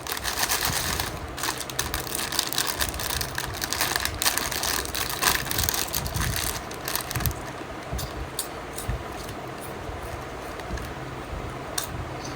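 Close-miked crunching of crisp food being chewed, dense and crackly for about the first seven seconds, then thinning to scattered sharp crackles.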